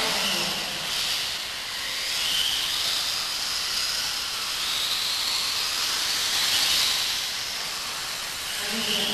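Radio-controlled off-road buggies running on the track: a high motor and gear whine that rises and falls as the cars speed up and slow down, over a steady hiss.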